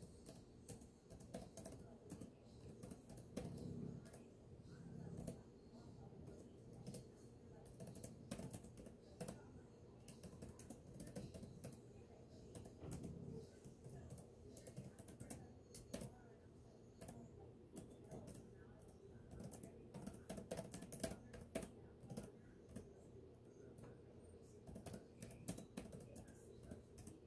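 Faint typing on a computer keyboard: irregular runs of quick key clicks broken by short pauses.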